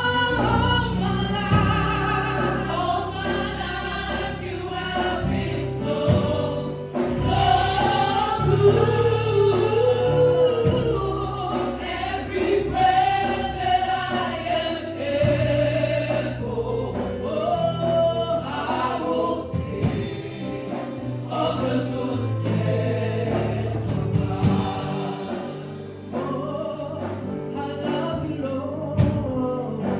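Congregation and worship band singing a gospel worship song, voices together over sustained bass and keyboard-like accompaniment.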